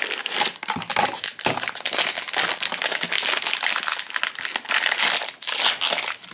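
Foil blind-box pouch and cardboard box packaging crinkling and rustling as they are handled and pulled open, in a dense run of crackles.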